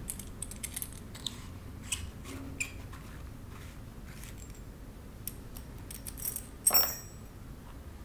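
Small metallic clicks and clinks of a brass capsule multi-tool being unscrewed and its steel bits handled, with one louder, ringing clink near the end as a metal piece is set down on the bench.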